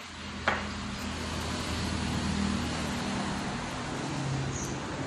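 A single sharp click about half a second in, then the steady hum of a motor vehicle's engine that grows louder, its pitch dropping a little near the end.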